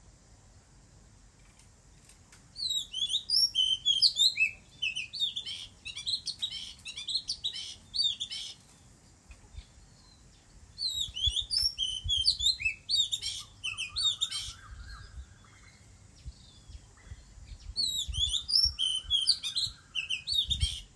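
Oriental magpie-robin singing: three spells of quick, varied whistled phrases, each a few seconds long, with pauses between them.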